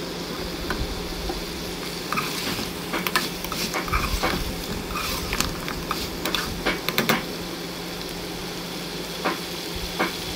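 Mutton pieces sizzling as they fry in their own fat in a metal pot, the cooking water almost boiled off. A metal spoon scrapes and clicks against the pot as the meat is stirred, mostly between about two and seven seconds in. After that the sizzling goes on with only a couple of knocks.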